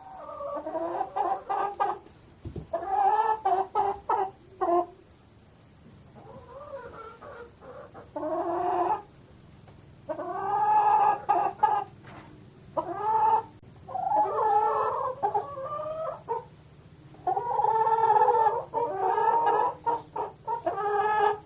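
Chickens clucking: runs of quick short clucks mixed with longer drawn-out calls, in bursts with brief pauses between them.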